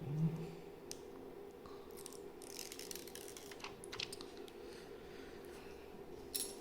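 Handling noise from a small plastic action camera being worked by hand: scattered light clicks and brief rustles, with a short low murmur from the handler right at the start.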